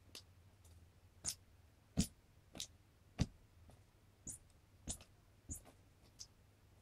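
A Tonkinese cat swatting at toys, including a squeaky toy mouse: a string of about nine short taps and thumps roughly every half-second, several of them sharp and high-pitched.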